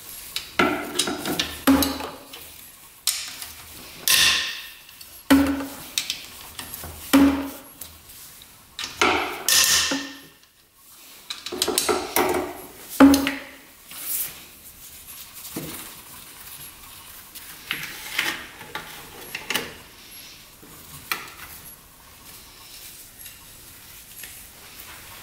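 Metal hand tools and bolts clinking and knocking against metal in irregular separate strikes with pauses between, as the cylinder head bolts of an ATV engine are undone.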